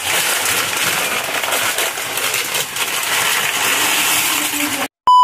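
Minced meat sizzling and crackling as it fries in a pan on a gas stove, with dry fideo noodles poured into a pot near the end. Just before the end the sound drops out and a loud, steady censor beep cuts in.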